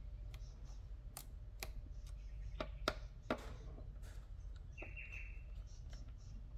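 Small screwdriver clicking against the speedometer's retaining screws on the back of a Subaru SVX instrument cluster as they are undone: several sharp clicks between about one and three and a half seconds in, the last two the loudest. A short high chirp comes near the end, over a low steady hum.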